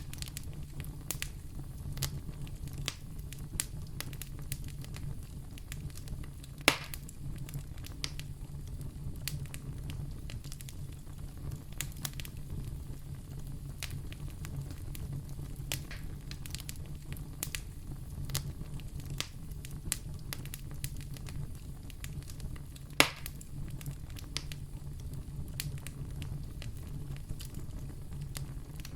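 Wood fire burning in a fireplace: a steady low rumble with frequent irregular crackles, and two louder pops, about a quarter of the way in and again about three quarters in.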